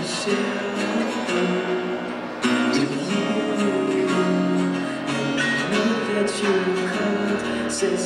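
Rock band playing live: guitars strumming chords over drums and cymbals. The band gets louder about two and a half seconds in.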